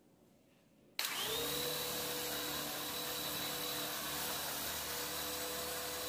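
Small electric motor of a rebuilt toy helicopter switching on about a second in, spinning up quickly and then running steadily with a high whine as the rotor turns.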